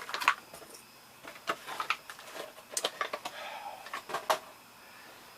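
Packaging being handled and opened by hand: a string of irregular sharp clicks and crinkles.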